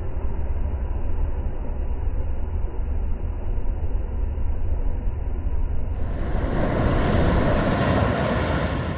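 A steady, dull, muffled rumble with no high end. About six seconds in it cuts to the brighter, fuller hiss of sea waves washing onto the beach.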